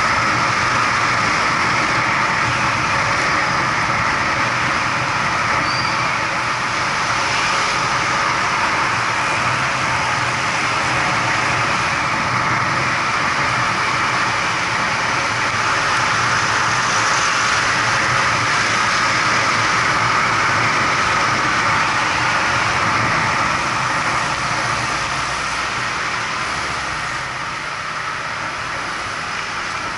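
Steady riding noise of a vehicle moving through traffic: a continuous engine drone mixed with wind and tyre noise, easing off slightly near the end.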